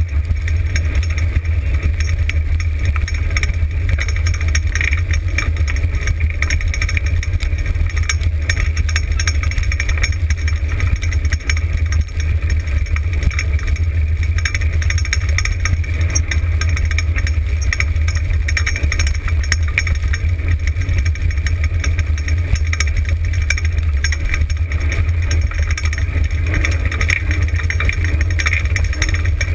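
Dryland dog-sled rig rolling fast over a dirt and gravel trail: a steady low rumble from the wheels with continuous rattling and clattering of the frame.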